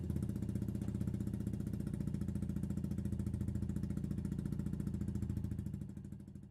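Benelli BN125's single-cylinder engine idling steadily through a Scorpion stainless full exhaust system with RedPower silencer, an even, rapid putter that fades out near the end.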